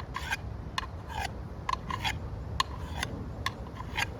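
Steel knife blade making a quick series of short, crisp scraping strokes and clicks, about two or three a second, irregularly spaced.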